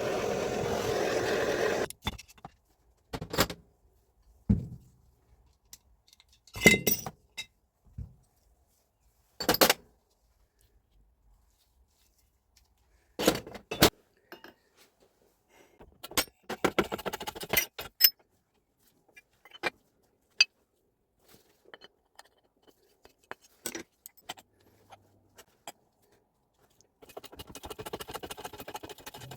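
Metal parts of a Hilti TE76 rotary hammer clinking and clattering as it is stripped down on the bench: a noisy rush of about two seconds at the start, then scattered sharp knocks and clinks, with rattling spells in the middle and near the end.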